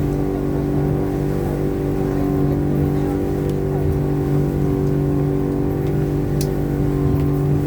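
Outboard motor of a passenger speedboat running steadily at cruising speed, a constant even drone.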